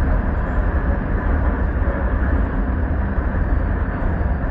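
Steady low rumble of a coach driving on the road, heard from inside the cabin: engine and tyre noise.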